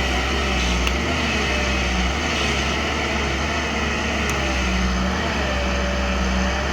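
JCB 205 LC excavator's diesel engine running steadily, a constant low drone with faint tones that drift slightly in pitch.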